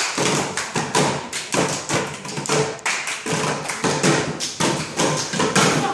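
Group of girls slapping and tapping their hands on plywood school chair seats together in a fast, steady rhythm, about four hits a second.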